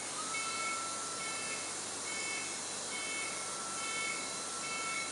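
Aesculap (B. Braun) high-speed cranial drill running free under foot-pedal control: a steady high whine over a hiss. The whine drops out for about a second around two seconds in. Short high beeps come about once a second.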